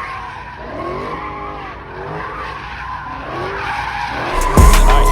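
Car tyres squealing in a series of rising and falling squeals. Loud hip-hop music with a heavy bass beat comes in near the end.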